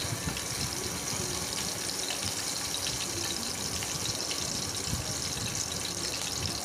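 Hot oil sizzling in a kadai as cumin seeds and chopped green chillies fry: a steady hiss with many small scattered crackles.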